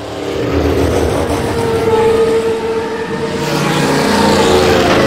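Sound effect for the channel's logo card: a loud, steady drone with a sustained hum that swells over the first second, then holds.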